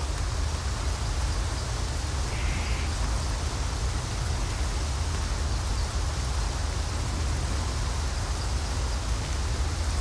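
A steady rushing noise, like rain or hiss, spread evenly from low to high, over a constant deep low rumble, with no clear melody.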